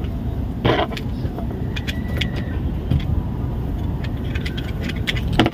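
Plastic buckles and clips of a chest-strap mount giving several small clicks as they are handled, over a steady low rumble.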